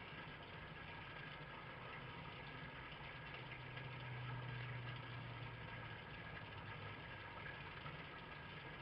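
A low, steady mechanical hum like an engine idling, swelling for a few seconds in the middle, under a faint steady hiss.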